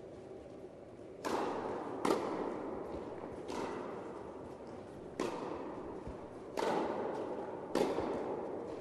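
Tennis rally on an indoor court: six sharp thwacks of racket strikes and ball bounces, one to one and a half seconds apart, each ringing on briefly in the hall's echo.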